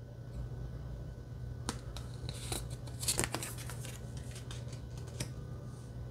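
Cardstock oracle cards being handled: a cluster of light clicks and slides in the middle as a card is moved through the deck, one more click near the end, over a steady low hum.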